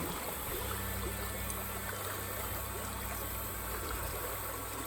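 Steady rush and trickle of flowing river water around a canoe, with a low steady hum beneath it.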